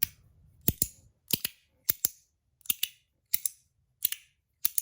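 Stainless-steel EDC pod slider fidget being slid open and shut over and over, its metal parts clicking sharply at each stroke: a quick double click about every two-thirds of a second.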